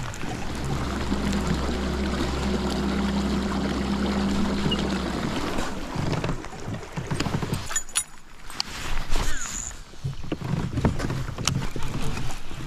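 Electric kayak motor humming steadily, then cutting out about five and a half seconds in, over the hiss of rain falling on the water. After it stops, rain and irregular knocks and rustles of handling in the kayak remain.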